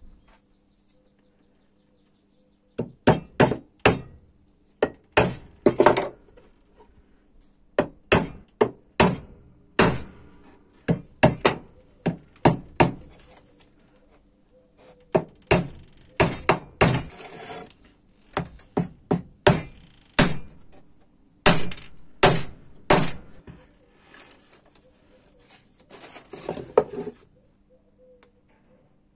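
Hammer driving small nails into the wooden shelf pieces: runs of quick, sharp blows starting about three seconds in and stopping near the end.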